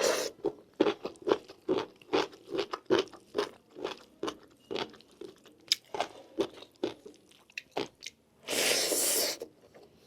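A person chewing a mouthful of food close to the microphone, in a steady rhythm of about two to three chews a second, with a louder rushing noise lasting about a second near the end.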